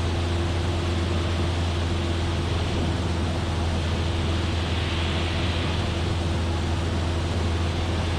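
Cessna 172F's engine and propeller droning steadily in flight: a constant low hum with a steady higher tone over an even wash of noise.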